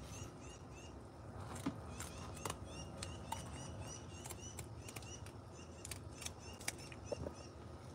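Kitchen scissors snipping through a whiting's backbone: a scattered series of faint, crisp clicks and crunches. High chirps repeat steadily in the background, like a small bird calling.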